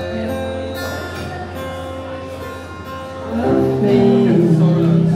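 Live music: an acoustic guitar with a singer, growing louder about three and a half seconds in.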